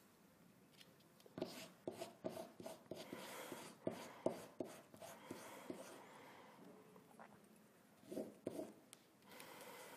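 Faint rustling and scratching of paper photocopies being handled and rubbed down onto fabric, in short irregular scratches with small clicks, busiest in the first half and again near the end.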